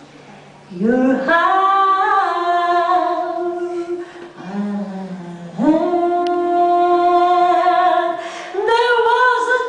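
A woman singing live into a microphone, holding long sustained notes that slide up into pitch at their starts, in three phrases after a brief pause at the beginning.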